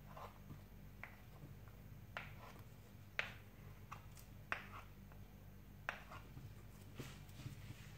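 Faint, soft clicks and scrapes, about one a second, from a wooden spoon and a metal spoon working thick barley-flour genfo dough in a pot.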